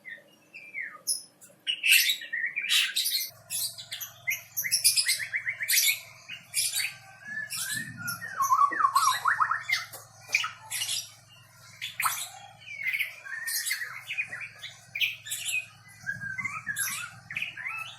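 White-rumped shama (murai batu) singing, a rapid, varied song of sharp notes, whistles and trills.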